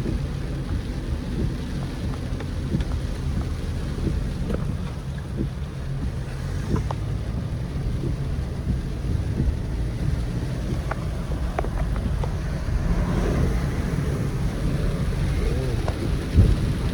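Car on the move: a steady low rumble of road and engine noise, with wind buffeting the microphone.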